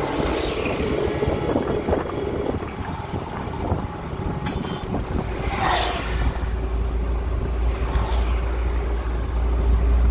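Road noise of a car driving, heard from inside the cabin: a steady rumble of engine and tyres with some wind noise, the low rumble growing heavier from about six seconds in. A brief falling whoosh comes near the middle.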